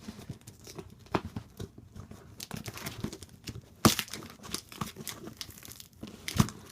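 A package being cut and torn open with a dull knife: crinkling and tearing of the wrapping with irregular crackles, and two sharp knocks, the louder about four seconds in and another near the end.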